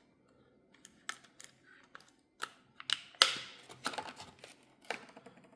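Handling noise: scattered light clicks and taps, with a louder rustling scrape a little past three seconds in.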